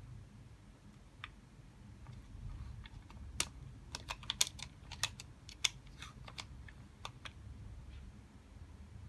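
An irregular run of about a dozen light, sharp clicks and taps, bunched together a few seconds in, like small hard pieces being handled and knocked together.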